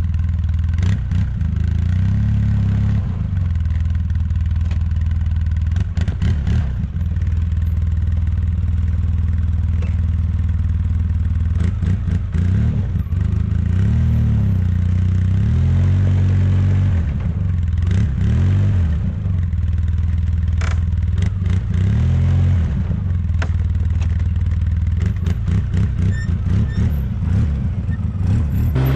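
Polaris Sportsman 700 EFI ATV engine pulling slowly up an icy, snow-covered grade in low gear and two-wheel drive. It revs up and drops back several times as the studded rear tires struggle for grip, with scattered clicks and clatter.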